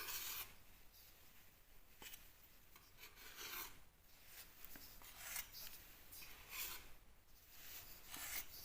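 Faint scraping strokes of a filling knife working wet filler on plasterboard, a stroke every second or so.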